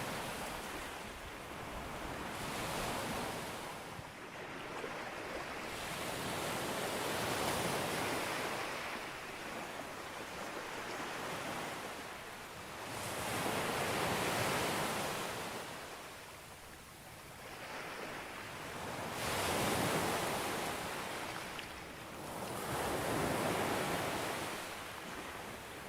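Sea waves breaking on a sandy beach: each wave swells to a hiss of surf and washes back, a new surge arriving roughly every six seconds.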